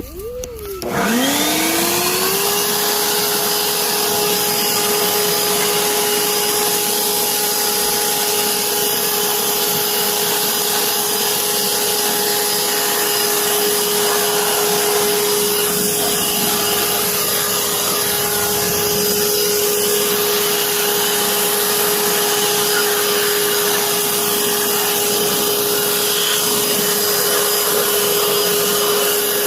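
Electric blower starting up, its motor whine rising in pitch about a second in, then running steadily with a rush of air, blowing water off the washed mower to keep it from rusting.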